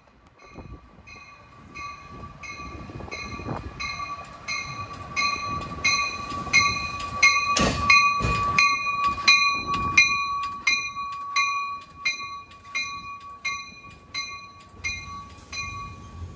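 Amtrak Capitol Corridor passenger train arriving at a station, its bell ringing about twice a second and growing louder as the cab car nears and passes, then fading. Under it a steady high squeal from the slowing train, the rumble of the cars, and two loud clanks about eight seconds in.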